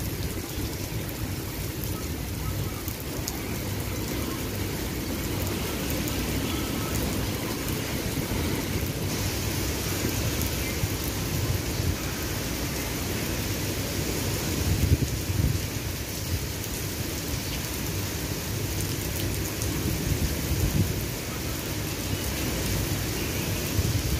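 Steady rain falling, with low rolling thunder underneath that swells to louder rumbles about fifteen and twenty-one seconds in. The rain's hiss grows stronger about nine seconds in.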